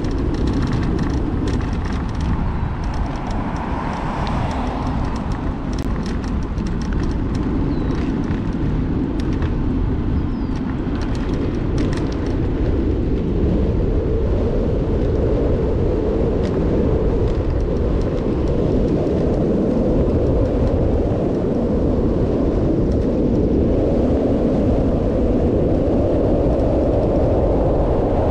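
Wind rushing over the microphone of a camera on a bicycle coasting fast downhill, mixed with the road noise of the ride. The noise grows a little louder in the second half, with scattered light clicks and ticks in the first half.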